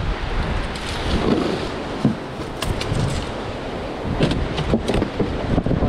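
Wind buffeting the microphone over the rush of surf, with a few sharp clicks and knocks as a plastic cooler lid is handled and opened near the end.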